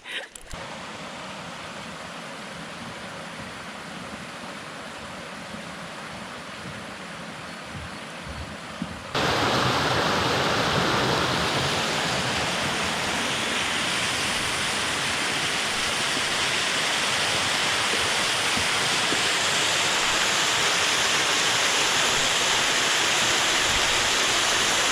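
Waterfall rushing steadily. About nine seconds in it jumps suddenly louder and brighter, then holds steady.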